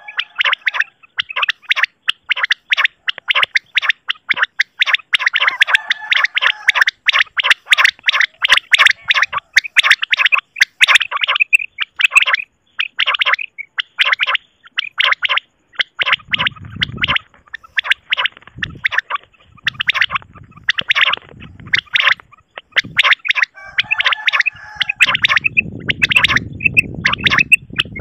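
Common quail calling in rapid, dense runs of short, sharp notes, many each second, with a low rumble joining in at times during the second half.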